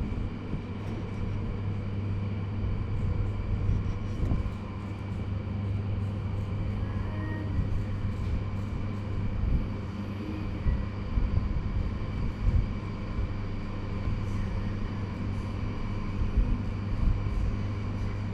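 A steady low hum with scattered faint clicks.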